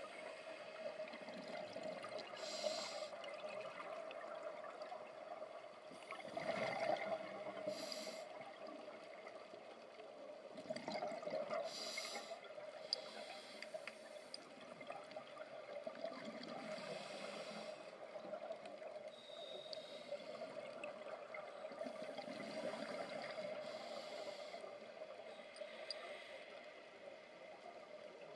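Scuba diver breathing through a regulator underwater: bursts of exhaled bubbles every few seconds over a steady hum.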